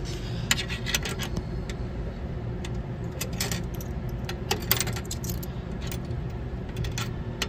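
Coins clinking together in a hand and dropping one after another into a kiddie ride's coin mechanism, a series of short metallic clinks, over a steady low rumble.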